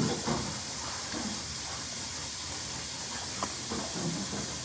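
Steady hiss, with a few faint soft taps and a small click about three and a half seconds in.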